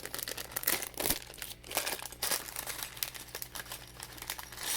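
Plastic packaging of a Lego Mixels set crinkling and crackling irregularly as it is handled.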